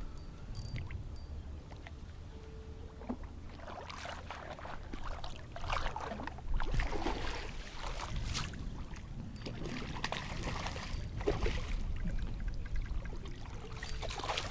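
Water splashing and sloshing in irregular bursts over several seconds, with a low steady rumble underneath: typical of a hooked trout thrashing at the surface as it is brought in beside the boat.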